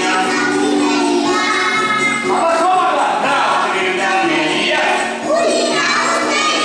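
Young children singing a song together over instrumental accompaniment.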